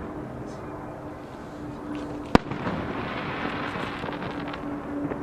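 Fireworks over the water: a single sharp bang of a shell bursting about two seconds in, followed by about two seconds of crackling hiss.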